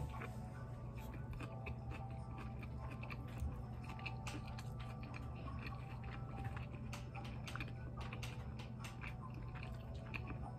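Close-miked biting and chewing of a shrimp cheeseburger in a soft bun: a run of wet mouth clicks and smacks.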